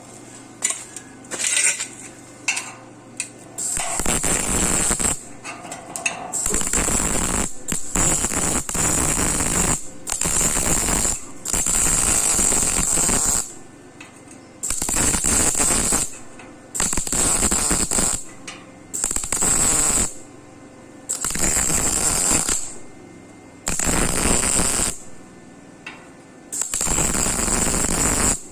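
Electric arc welding on 1×2 steel box tube: about ten bursts of crackling hiss, each one to two seconds long with short pauses between, as short welds are laid one after another. A few light taps and clicks come first.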